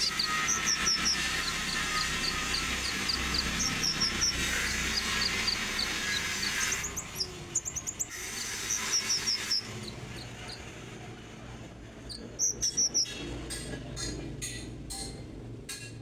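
Common iora (konin) singing: runs of short, high chirping notes repeated in quick series. A steady hiss lies under the first part and stops about seven seconds in; sharp clicks follow in the second half.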